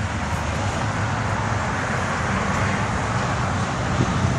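Steady motor-vehicle noise: a low engine hum under an even rushing hiss, with no distinct events.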